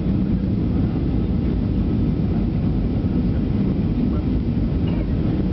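Steady cabin roar of a Boeing 737-500 on approach, heard from a seat over the wing: its CFM56-3 turbofan engines and the rush of air past the fuselage, with a low steady hum underneath.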